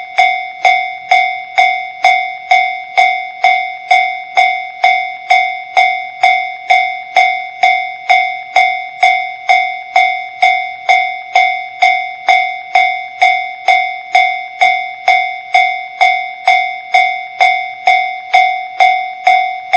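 An alarm bell struck at a steady pace, about one and a half strikes a second, each clang ringing on into the next without a break.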